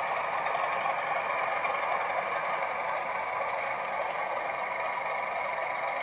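Sound decoder in an OO gauge Class 31 model diesel locomotive playing a steady diesel engine sound through its small speaker, thin and without bass.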